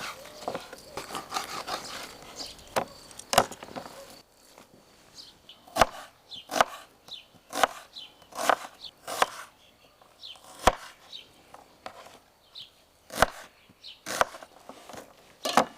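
Chopping on wood: a series of sharp chops, about one a second and irregularly spaced, with lighter clattering in the first few seconds.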